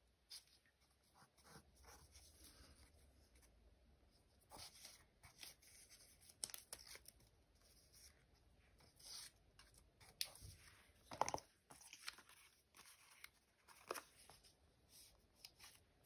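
Faint paper handling: scattered light rustles and small taps as paper pieces are moved and pressed onto a journal page, with a sharper crackle about eleven seconds in.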